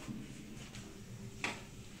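Quiet room tone with a faint low hum and one sharp tap or click about one and a half seconds in.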